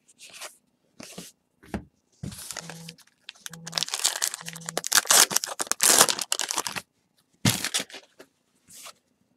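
A foil trading-card pack being torn open and its wrapper crinkled: a dense crackling run lasting about three seconds in the middle, with scattered short rustles of card handling before and after.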